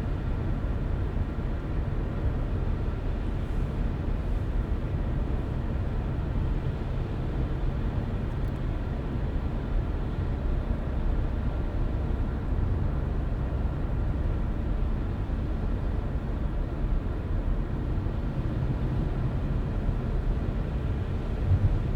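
A car driving at steady speed: a continuous low rumble of tyres on the road and engine, with a brief bump near the end.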